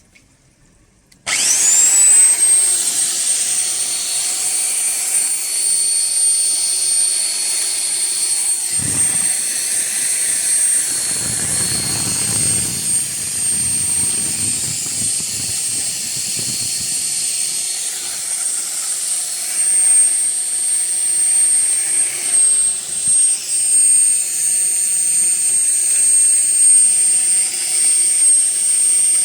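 Motor of a stand-mounted hand well-drilling machine starting up, its whine rising within about a second to a steady high pitch and running on. A lower rumble comes and goes for several seconds in the middle.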